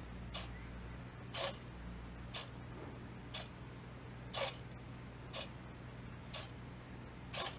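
Two hobby servo motors driven by an Arduino Nano whirring in short bursts about once a second, rocking two small pumpkin figures. The bursts fall into a waltz pattern, one stronger followed by two lighter, repeating every three seconds.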